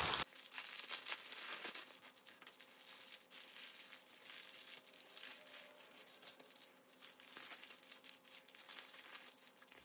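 Small plastic bags of diamond-painting drills and their clear plastic wrapping crinkling as they are handled and spread out, a fairly quiet, irregular stream of small crackles.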